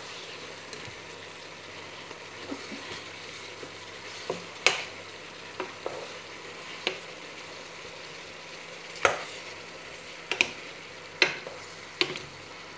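Ground meat, carrots and onions sizzling in a frying pan as they are stirred and tossed with a wooden spatula, with irregular sharp knocks of the spatula against the pan over a steady frying hiss.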